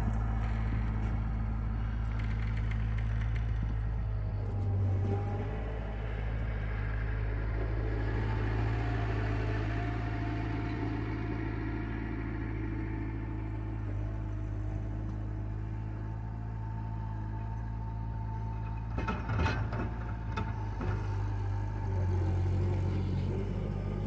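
Bobcat skid steer engine running steadily at a distance while the machine pushes snow and drives across the yard, with a short spell of clattering knocks about 19 seconds in.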